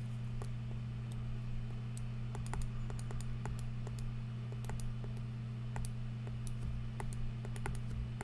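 Stylus tip tapping and clicking on a tablet screen while handwriting: irregular light clicks, a few to several a second, over a steady low hum.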